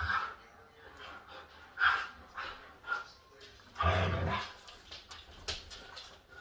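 Two Siberian huskies play-fighting, barking and calling at each other in short separate bursts, the loudest and longest call about four seconds in.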